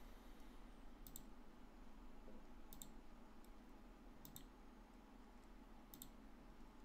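Near silence: room tone with a steady low hum and four faint, sharp clicks, each a quick double tick, spaced about a second and a half apart.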